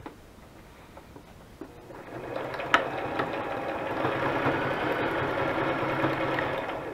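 Sewing machine stitching a zigzag through paper, starting about two seconds in and running steadily until just before the end. A sharp click comes shortly after it starts.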